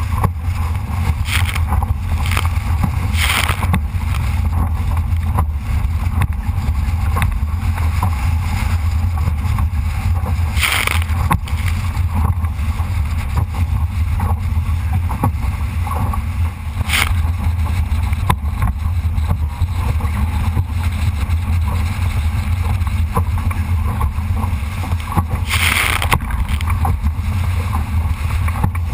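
Wind buffeting the microphone of a camera aboard a Solo sailing dinghy under way, a loud steady low rumble over the wash of water along the hull, with four brief splashing hisses spread through it.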